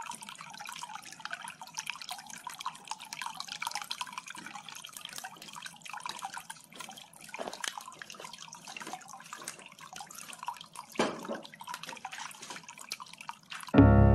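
Water from a small submersible pump splashing and trickling in the plastic tub of a homemade cat water fountain, a steady patter of drips and bubbles. There is a single louder thump about eleven seconds in.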